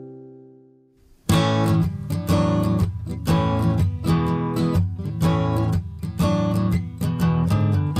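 A held chord fades out, then about a second in a strummed acoustic guitar starts a steady rhythm, the instrumental intro of a children's song.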